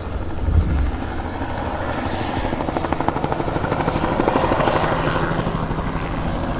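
Herbicide-spraying helicopter's rotor beating steadily as it flies low over the clear cut, growing a little louder around the middle. A brief low thump about half a second in.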